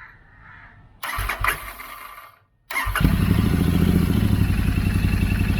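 Royal Enfield Interceptor 650 parallel-twin engine running at idle, loud through short stainless Powerage slip-on silencers; it comes in just under three seconds in, after a brief noisy clatter and a moment's gap. The silencer-to-pipe joints are being checked and show no leakage.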